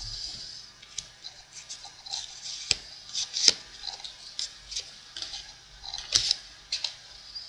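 Playing cards handled on a wooden tabletop: a run of sharp snaps and taps as cards are picked up, flicked and put down, with soft brushing between. The loudest snaps come about three and a half and six seconds in.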